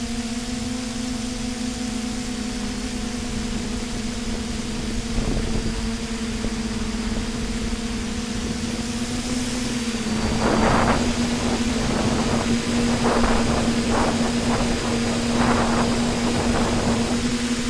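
TBS quadcopter's electric motors and propellers humming steadily, heard from its onboard camera. From about ten seconds in, a series of rough bursts as the craft comes down and crashes during autoland, with the motors still running and a propeller still spinning afterwards.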